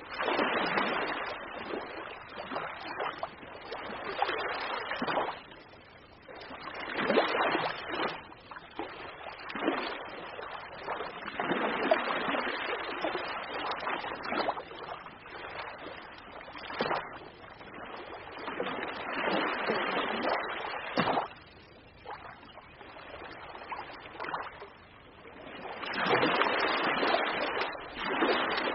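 Ocean waves breaking and washing ashore, a rushing surge that swells and falls back every few seconds.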